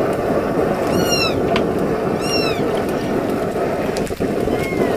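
Meat and broth cooking in a wok over a wood fire, a steady sizzling bubble. A few short, high, arching cries come over it, about a second apart.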